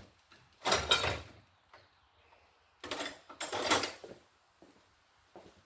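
Handling noise from bench work: two bursts of rattling and rustling, about a second in and again around three to four seconds in, with a few faint ticks after.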